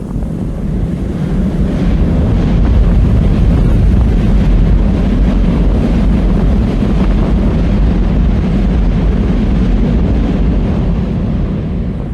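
Wind gusting across a phone's microphone: a loud low rumble with a rushing hiss above it, building over the first couple of seconds and easing off near the end.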